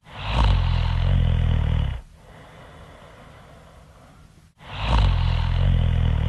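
A person snoring loudly: two long snores, each about two seconds, with a low fluttering rumble and a breathy hiss, about four and a half seconds apart.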